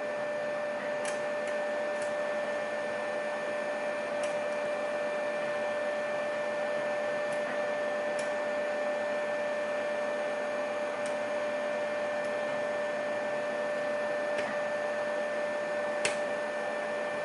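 Steady electrical hum with a constant whine throughout, over which a few faint, scattered clicks of lock picks working the pins of a lock are heard, one a little louder near the end.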